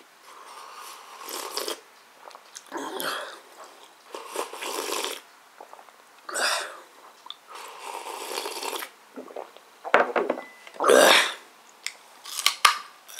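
A person drinking from a mug: a series of noisy gulps and breaths, with a louder breathy mouth sound about eleven seconds in. Near the end come crunchy bites into a whole carrot.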